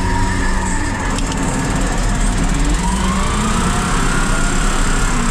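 Volvo L350H wheel loader's diesel engine running steadily under load, heard from inside the cab. About three seconds in, a whine rises in pitch and then slowly eases off as the bucket is raised.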